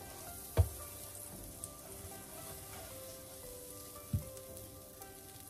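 Banana-oat pancake batter sizzling in butter in a frying pan. Two dull knocks come through, one near the start and one about four seconds in.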